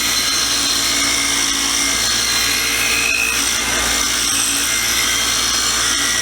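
A power tool running steadily at an even speed, working against metal parts as they are cleaned.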